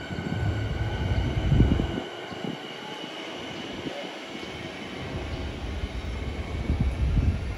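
Siemens Nexas electric suburban train pulling away from the platform, a steady high electric whine fading as it moves off. Low gusty rumble, loudest in the first two seconds and again near the end, buffets the microphone.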